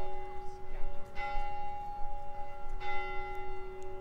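Church bells ringing, with fresh strokes about a second in and again near three seconds, the tones ringing on between them.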